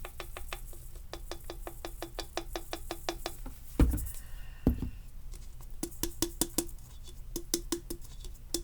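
Quick, even tapping of a glitter container, about six or seven light taps a second, with two heavier knocks near the middle.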